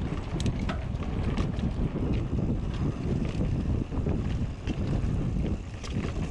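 Wind buffeting the microphone and mountain-bike tyres rumbling over a packed-dirt trail at speed, with scattered small clicks and rattles.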